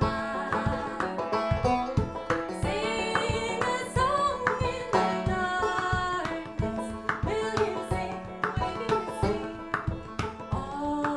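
Live acoustic music: a woman singing over banjo picking, with quick hand strikes on a large round hand drum keeping a rhythm throughout.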